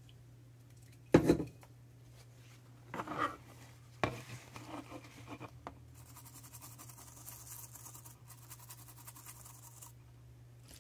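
A loud thump about a second in and a couple of handling knocks, then several seconds of rapid back-and-forth scrubbing on a circuit board, cleaning off flux with flux remover, which stops near the end.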